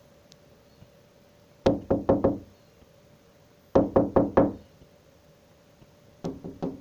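Knocking in three quick runs of four or five raps each, the last run softer: someone rapping to wake a blue jay asleep in the feeder.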